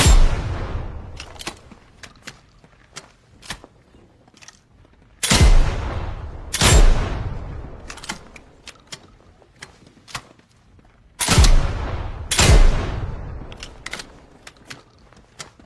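Double-barrel shotgun firing: one shot right at the start, then two pairs of shots, the two barrels in each pair about a second and a half apart and the pairs about six seconds apart. Each shot has a long echoing tail, and faint clicks and knocks come between the pairs.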